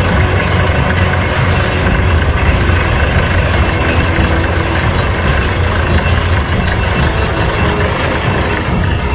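Truck-mounted borewell drilling rig running steadily under load while drilling, its engine giving a loud, even, low drone with a dense noisy wash above it as mud and cuttings are flushed out of the bore.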